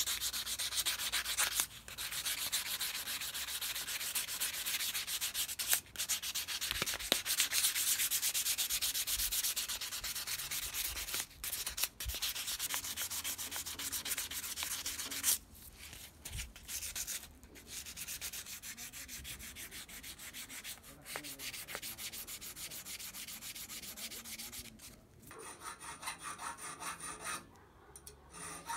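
Hand sanding a small brass saw-handle nut clamped in a bench vise: sandpaper rubbed back and forth in quick strokes, quieter from about halfway through.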